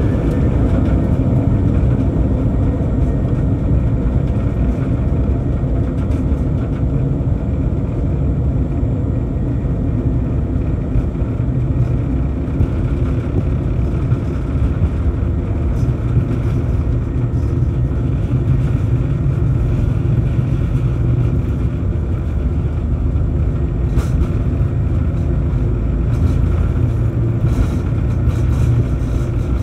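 Jet airliner cabin noise while taxiing: a steady low rumble from the engines at taxi power and the aircraft rolling along the taxiway.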